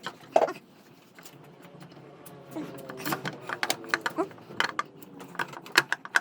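Irregular clicks and light metallic knocks of hand tools and parts being handled during motorcycle clutch work, coming quicker near the end.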